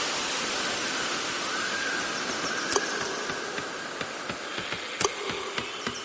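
Steady hiss, then a pencil scratching on drawing paper in quick short strokes from about four seconds in, with a couple of sharp clicks.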